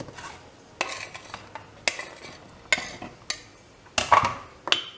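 Kitchen knife cutting pitted dates on a plastic cutting board: about half a dozen sharp knocks at uneven intervals.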